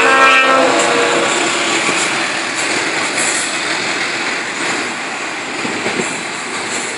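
Double-stack container freight train rolling past, a steady loud noise of the cars running on the rails. A brief pitched tone sounds in the first second.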